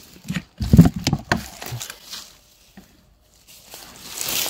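Close crackling and rustling of dry forest-floor litter and twigs, with several sharp knocks and thumps in the first second or so, as hands work in the litter around a porcini mushroom. A brief lull follows, then a rising rustling hiss near the end.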